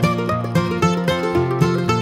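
Background music: an upbeat tune of quickly plucked strings, like a mandolin or guitar.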